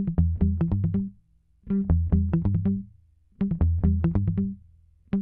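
Background music: an electronic track of short repeated phrases of quick plucked notes over a bass line, each phrase about a second long with brief pauses between.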